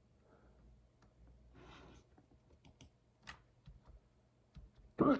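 Faint scattered clicks of typing on a computer keyboard, with a soft breath. Near the end comes one short, sharp hiccup, the loudest sound, a small but violent hiccup that catches the breath.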